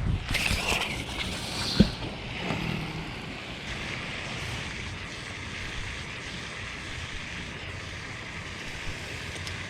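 A brief rustle and a single sharp clack about two seconds in, then steady wind noise on the microphone.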